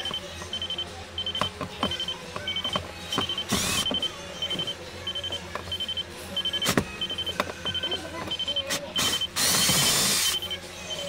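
Ridgid cordless drill/driver whirring in two short runs, about three and a half seconds in and a longer one near the end, backing out the screws of a plastic steering-column trim panel, with sharp clicks in between. A car's high warning chime beeps steadily about one and a half times a second throughout.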